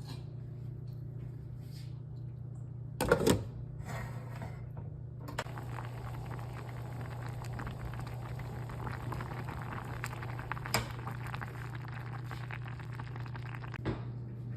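Kitchen cooking sounds: a steady low hum, a brief clatter about three seconds in, then a steady crackling hiss from about five seconds in, with two sharp clicks later.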